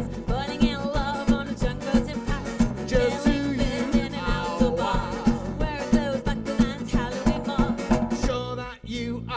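Live folk-rock band playing with a steady drum-kit beat, acoustic guitar, bass and a wavering melody line on top. The music dips briefly near the end before the next line comes in.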